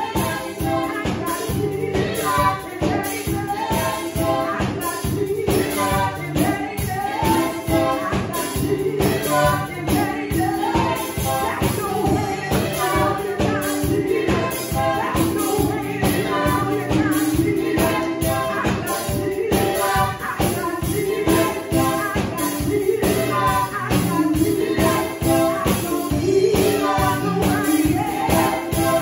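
Upbeat gospel music with a fast, steady beat, tambourine and singing.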